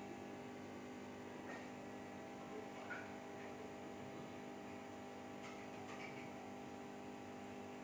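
Steady low electrical hum, with a few faint soft sounds of hands pressing crumbly sattu filling into a cup of wheat dough.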